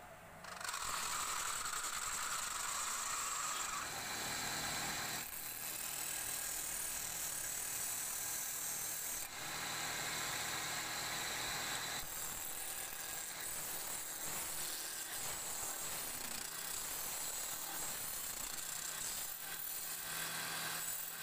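Wood lathe spinning a square wooden blank while a hand-held turning tool cuts it round: a steady, rough scraping hiss of the tool in the wood, starting about half a second in, over a low hum from the lathe.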